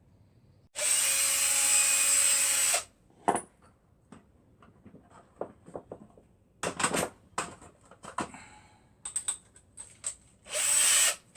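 Electric drill-driver driving screws into wooden fence slats: the motor runs steadily for about two seconds, then a string of sharp clicks and knocks, and a second short run near the end.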